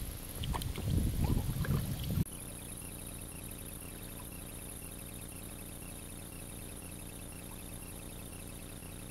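Kayak paddle strokes splashing and water gurgling against an inflatable kayak, with wind buffeting the microphone. About two seconds in the sound cuts abruptly to a quieter steady background with a fast, even high-pitched ticking.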